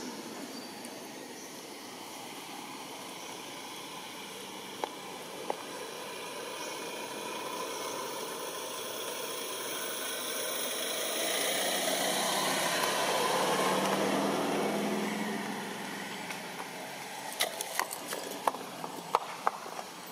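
A motor vehicle passes by over a steady background of outdoor noise, swelling to a peak about two-thirds of the way through and then fading. A run of sharp clicks follows near the end.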